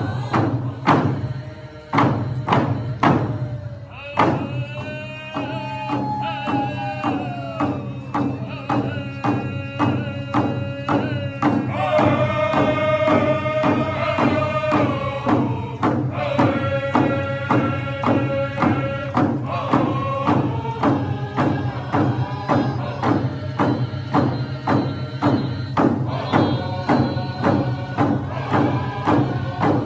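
Powwow drum group: a large drum struck in a steady beat, about two strokes a second, with singers in high voices coming in about four seconds in. Each sung phrase falls in pitch.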